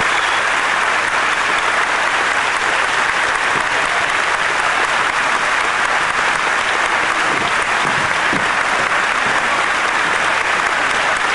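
A large crowd applauding steadily: dense, even clapping that neither swells nor dies away.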